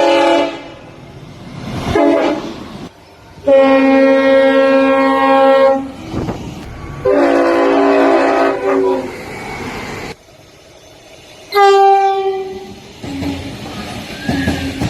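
Train horns from several passing trains, edited back to back: a few short blasts, then two chords of about two seconds each. A last blast near the end drops in pitch as the train goes by, the Doppler effect.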